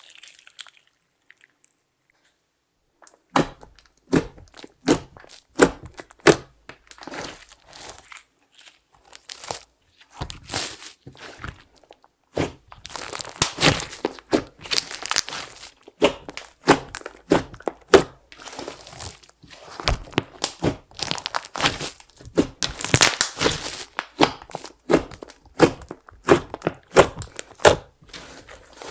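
Clear slime being squished and worked by hand, giving rapid sticky crackling, clicking and popping, with makeup and glitter mixed through it. It begins after about three seconds of quiet and grows denser in busy stretches.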